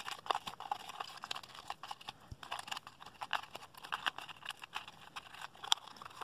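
Wire twist ties being untwisted and pulled through holes in a cardboard packaging insert: irregular scratchy rustling with many small clicks as the ties rub and snag on the card.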